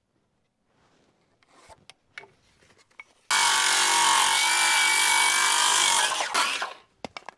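Power saw cutting through a wooden board, starting suddenly a little over three seconds in, running steadily for about three and a half seconds, then winding down. Faint knocks and handling noises come before it.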